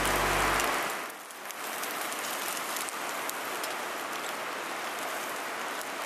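Marinated black pork sizzling on a wire grill over an open fire: a steady hiss with light crackling. A low hum stops about a second in.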